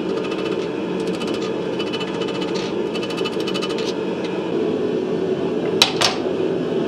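Blacksmith's forge running with a steady noise throughout. In the first four seconds there are runs of rapid, light strokes on metal, and about six seconds in come two sharp metal strikes in quick succession.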